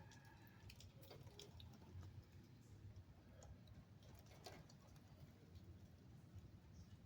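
Near silence: faint rain pattering and dripping, with scattered light ticks.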